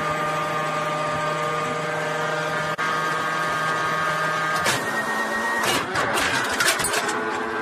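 A T-72-family tank's carousel autoloader running on the load command: a steady electric whine and hum as the carousel turns, changing about five seconds in, then a run of metallic clanks as the round and its propellant charge are lifted toward the breech.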